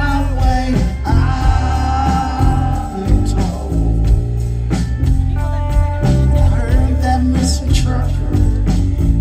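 Live rock band playing loud: electric guitars, bass and drums, with a voice singing over them.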